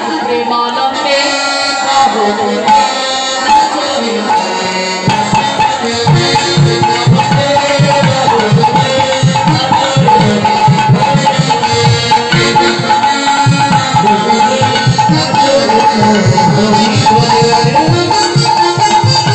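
Kirtan music: a khol drum played in a fast rhythm over a steady held note and singing. The drumming becomes louder and busier about five seconds in.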